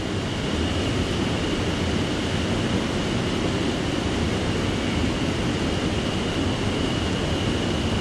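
Mountain stream water rushing steadily, with a faint steady high tone above it.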